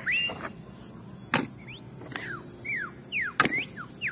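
Small birds chirping with short, quick down-slurred whistles, scattered through, sometimes two or three in quick succession. Two sharp knocks of toy cars being handled come about a second in and again past three seconds.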